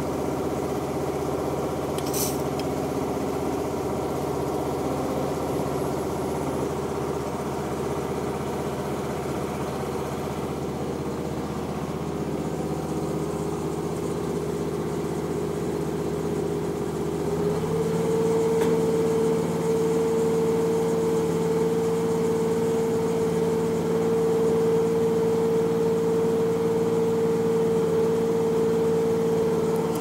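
An engine idling steadily. A bit past halfway its speed steps up a little and it gets slightly louder, then holds there. A single short click sounds about two seconds in.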